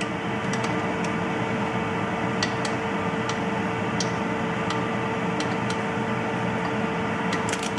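Steady machine hum with one constant tone, like a running kitchen appliance fan. Faint scattered ticks from a fork pressing and crimping the edges of soft dough pastries sit over it.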